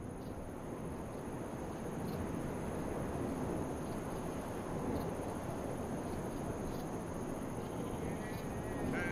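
Rural outdoor ambience fading in: a steady rushing noise with a constant high insect drone over it. Faint wavering calls begin near the end.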